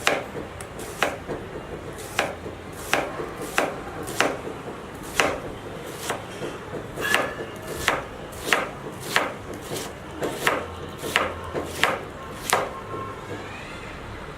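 A kitchen knife chopping on a cutting board in slow, even strokes, a little more than one a second.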